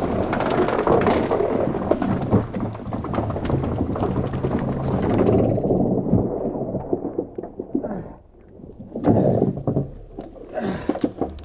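Big black plastic culvert being dragged by hand through brush and tree limbs: a dense scraping and crackling over leaves and twigs for about five seconds, then scattered snaps and rustles with a couple of louder scrapes near the end.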